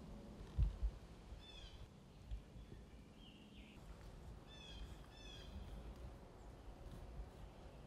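A songbird sings three short phrases of quick falling chirps, with a single whistled note between them, over quiet woodland background. Two low thumps sound about half a second in, and a softer one a couple of seconds later.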